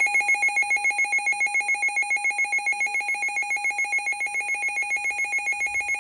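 Electronic EAS alert alarm for a received severe weather warning: a rapidly trilling beep pulsing about eight times a second, its pitch flipping back and forth.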